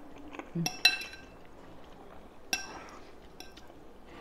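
Fork clinking against a ceramic pasta bowl while spaghetti is twirled and lifted: three sharp, ringing clinks, the loudest about a second in, another about two and a half seconds in, and a lighter one near the end.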